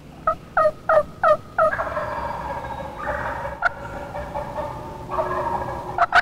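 Wild turkey gobbler gobbling in answer to a turkey call: five quick falling yelp-like notes, then a long, drawn-out gobble. Another quick run of short notes starts near the end.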